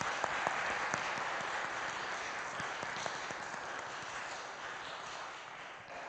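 Small church congregation applauding to welcome new members, a scattering of hands clapping that dies away near the end.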